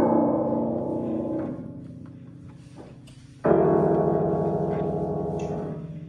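Piano chords: one struck right at the start and another about three and a half seconds in, each held and left to fade.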